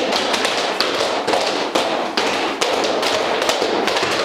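Small children's feet tapping and stamping irregularly on a wooden floor, many quick taps and a few heavier thumps, over a continuous background din.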